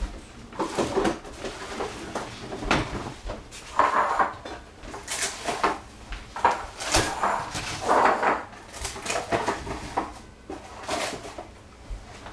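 Irregular knocks, scrapes and rustles of kitchen handling as an egg is cracked and its yolk separated from the white, with eggshell and a bowl or dish being knocked and moved.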